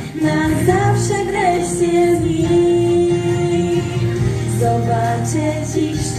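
Song music with a woman's singing voice carrying the melody on long held notes.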